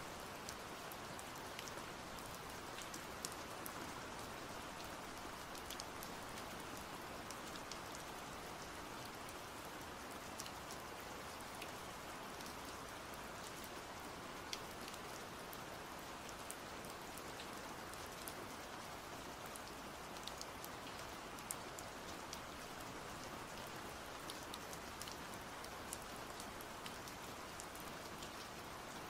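Steady rain, an even hiss with scattered sharp ticks of single drops.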